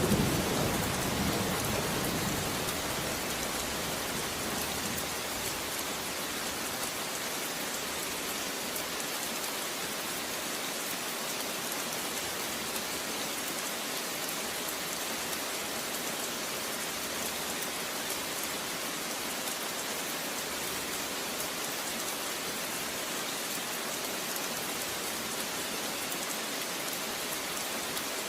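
Steady rain falling, an even hiss of drops with a little thunder rumble dying away in the first couple of seconds.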